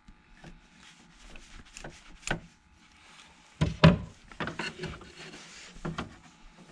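Scattered clicks, knocks and rubbing as cables and equipment are handled, with one louder thump about three and a half seconds in.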